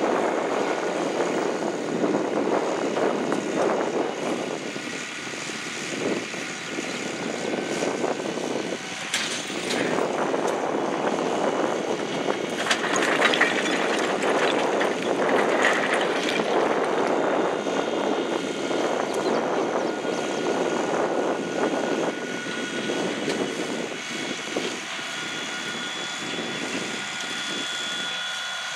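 Case IH Magnum 180 tractor's diesel engine running steadily as it pulls a reel-type rock picker over the field, with a louder, clattering stretch about halfway through.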